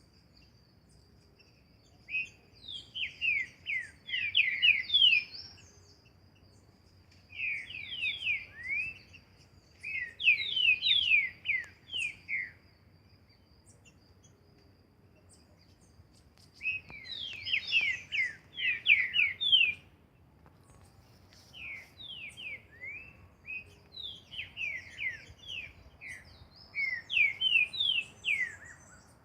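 Green-winged saltator (trinca-ferro) singing: several phrases of quick, loud, descending whistled notes, separated by pauses of a few seconds.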